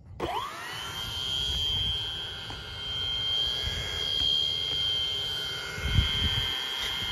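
Twin 80mm electric ducted fans of a Freewing A-10 RC jet spool up with a quickly rising whine, then run at a steady high whine while the model taxis.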